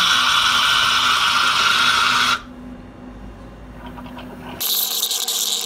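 Whipped cream dispenser hissing as pressurised gas sprays out of its nozzle: one long hiss that cuts off about two and a half seconds in, and a second one starting near the end.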